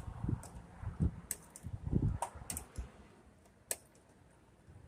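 Scattered clicks and a few low knocks from a screwdriver working screws out of a television's plastic casing.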